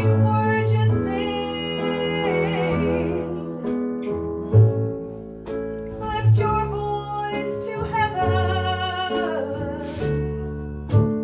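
A woman singing lead in a live folk song over a small band, with bass notes underneath and a few sharp beats.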